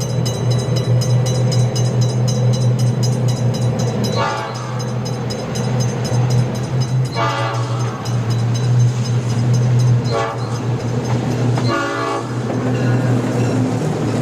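Railroad crossing sound effect: a train passing with a steady low rumble and a crossing bell ringing in a regular rhythm, cut by four short train horn blasts spaced a few seconds apart.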